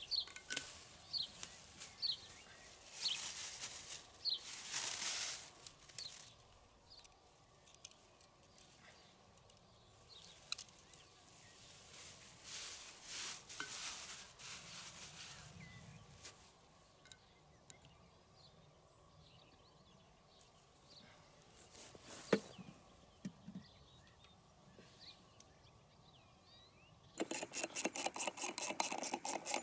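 Plastic tape lure rustling in bursts as it is handled and bundled up, with a single sharp click about two thirds of the way through. Near the end, a loud, rapid, even ticking of about eight clicks a second as the lure machine's loop wheel is turned on its spindle.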